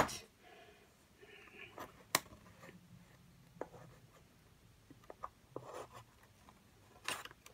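Faint handling of diamond-painting drills and their plastic bags: scattered light clicks, the sharpest about two seconds in, with soft rustles.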